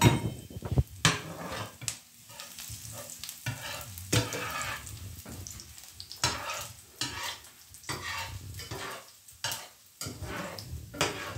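Chopped garlic sizzling in hot oil in a non-stick frying pan, stirred with a slotted spatula that scrapes across the pan in short strokes about once a second.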